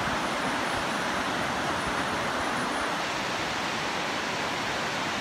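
Steady rush of a wide river pouring over a low dam spillway and whitewater rapids.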